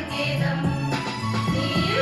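A group of women singing a song together in unison into microphones over a musical accompaniment with a stepping bass line.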